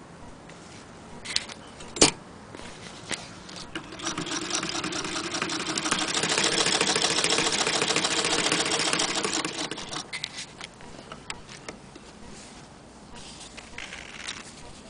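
Frister & Rossmann hand-crank sewing machine stitching: a fast, even clatter of the needle mechanism that builds up about four seconds in and dies away around ten seconds. There is a single sharp click about two seconds in, and a few faint clicks before and after the stitching.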